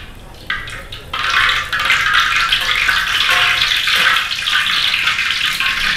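Flour-coated snakehead fish pieces sizzling in hot oil in a wok, the crackling frying starting suddenly about a second in and holding steady.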